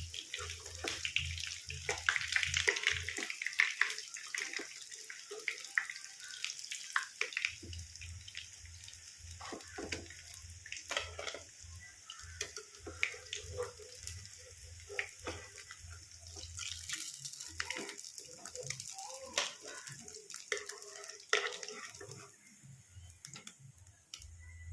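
Hot oil sizzling and crackling steadily as batter-coated boiled eggs (egg bajji) deep-fry, with a low hum under it that stops for a few seconds early on.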